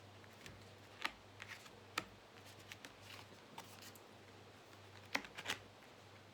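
Tarot cards being turned over and laid down: scattered light flicks and taps, the sharpest about a second in, two seconds in, and a pair around five seconds in, over a faint low hum.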